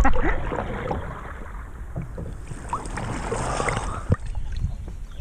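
River water sloshing and splashing around a camera held at and just under the surface, loudest at the start and settling down after about a second.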